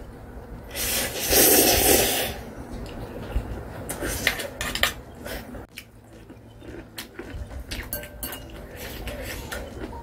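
A mouthful of instant stir-fried ramen noodles slurped loudly about a second in, then chewing and many light clicks of metal chopsticks against a glass bowl.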